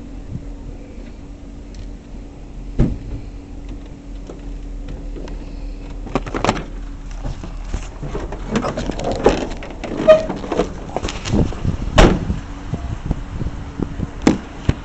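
A string of sharp knocks and clicks, such as car doors being opened and shut, over a steady low hum; the knocks come thicker and louder in the second half.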